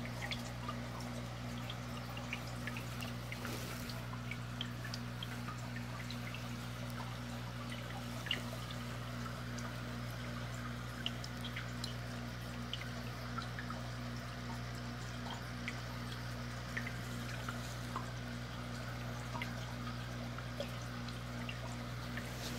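Aquarium air bubbles rising and breaking at the water surface, making irregular small drips and pops over a steady low hum from the tank's equipment.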